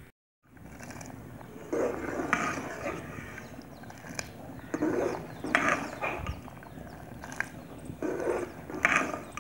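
Metal slotted skimmer spoon stirring boiling macaroni in an aluminium pot, giving a series of short scrapes and clinks against the pot over a steady hiss from the boiling water.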